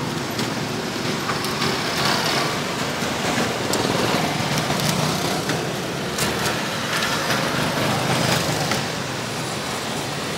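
Steady street traffic noise from passing vehicles, with a few faint clicks.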